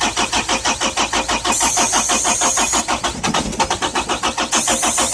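Diesel engine of a compact loader being turned over by its starter, cranking at an even beat of about six strokes a second without catching, with two spells of high hiss about a second and a half and four and a half seconds in.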